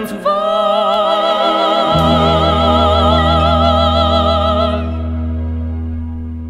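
A singer holds one long note with wide vibrato over a sustained orchestral chord, operetta style. A deep bass note comes in about two seconds in. The voice stops near five seconds, leaving the orchestra's chord fading.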